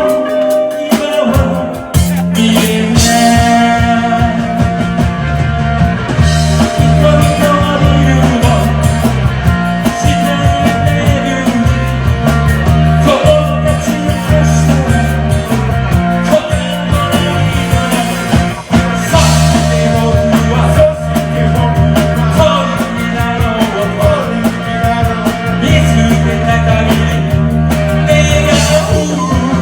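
Rock music: a band playing loud and steady, with a pulsing bass line.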